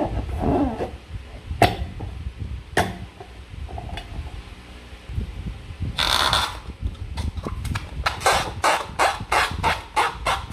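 Hands working slime and balloons: two sharp clicks, a short rustling hiss about six seconds in, then a quick run of squelching strokes, about three a second, toward the end.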